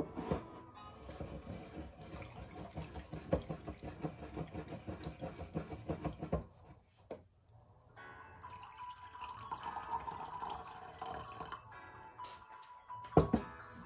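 Tea being poured from a glass tea server into a ceramic mug, a liquid pouring and filling sound, over soft background music. Near the end there is a sharp clunk as the glass server is set down on the wooden counter.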